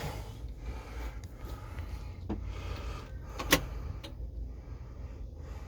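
John Deere 710D backhoe's diesel engine idling low and steady, with two sharp clicks, about two and three and a half seconds in.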